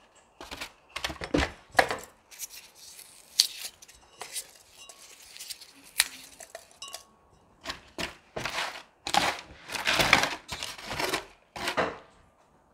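A plastic trowel scraping and scooping through gritty potting mix of soil and white grit in a plastic tub, with irregular rattling scrapes and a longer run of them in the second half.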